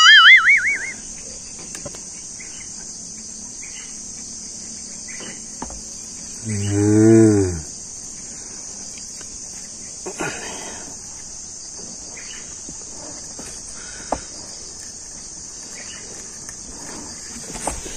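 A cow moos once, a single bending call of about a second beginning about six and a half seconds in, over a steady high hum of crickets. A few light clicks of pliers on a plastic pipe fitting come later.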